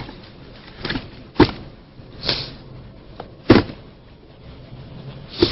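Handling noise: two sharp thumps, about two seconds apart, with a few lighter knocks and a brief rustle between them.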